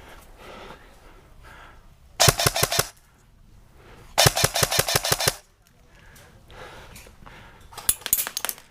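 Airsoft electric guns firing on full auto: a short burst a couple of seconds in, a longer burst about a second and a half later, and a few more quick shots near the end.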